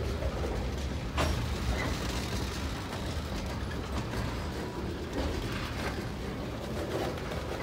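Freight train's tank cars and covered hoppers rolling past on the near track, their wheels giving a steady low rumble on the rails. A sharp knock sounds about a second in, with fainter knocks later.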